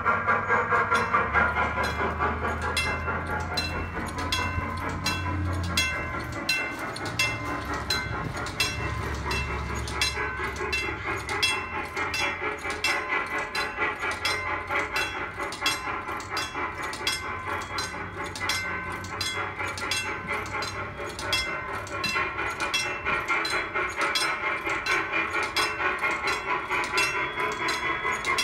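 Recording of a steam logging locomotive drawing disconnect log cars, played back through a coin-operated sound box's speaker: a steady, even rhythm of beats with a low rumble under the first half.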